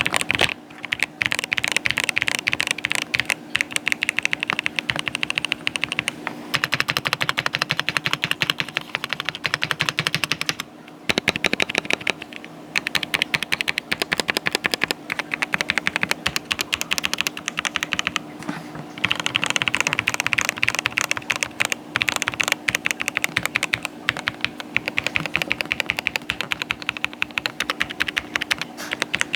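Rapid typing on an Epomaker Aura 75 mechanical keyboard fitted with pre-lubed Gateron Milky Yellow Pro V2 linear switches and tape-modded, keys clacking in fast runs with short breaks about 11 and 18 seconds in. The keystrokes have a thocky rather than poppy sound. A faint steady hum runs underneath.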